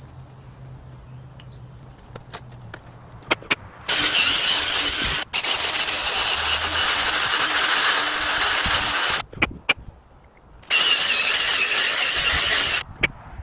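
Power-driven wire brush scrubbing metal, cleaning out the old ball-joint collar in the strut arm. It runs in two spells, about five seconds starting four seconds in, with a split-second break, then about two seconds more near the end, each starting and stopping suddenly; a few light clicks come before it.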